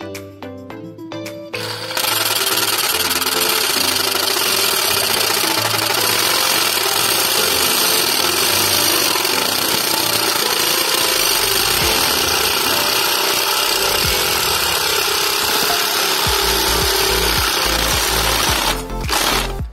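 Background music, then about two seconds in a Parkside PSSAP 20-Li B2 cordless reciprocating saw starts cutting a thin perforated steel plate. The sawing is loud and steady and breaks up near the end.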